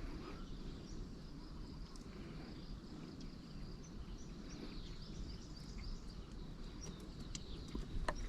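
Outdoor ambience: a steady high-pitched insect drone over a low rumble, with a few faint scattered clicks.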